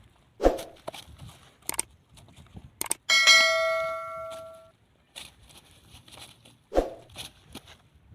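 Something metal is struck once and rings with several clear tones, fading out over about a second and a half. Dull thumps come about half a second in and again near the end.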